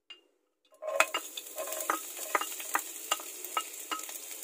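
Minced garlic sizzling as it is dropped into hot rendered pork fat in a nonstick frying pan, with a wooden spoon clicking and scraping as it pushes the garlic off the bowl into the pan. Quiet at first; the sizzle starts about a second in and holds steady.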